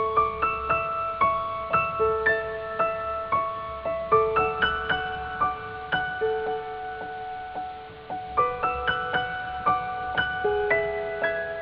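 Background music: a gentle piano melody of struck notes, about two a second, over a faint low hum.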